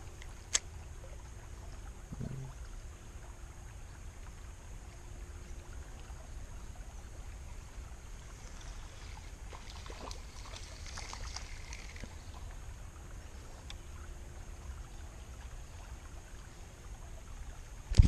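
Steady low background of flowing creek water. A hooked creek chub splashes at the surface for a few seconds a little past the middle as it is reeled in. There is a sharp click near the start and loud handling knocks at the very end.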